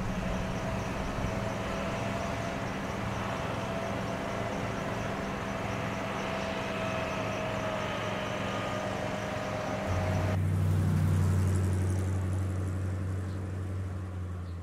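A car engine humming steadily amid street traffic. About ten seconds in the sound turns deeper and heavier, then begins to fade near the end.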